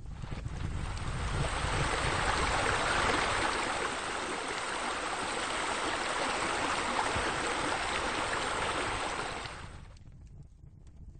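Steady rushing water, swelling in over the first couple of seconds and fading away about ten seconds in, over a low rumble.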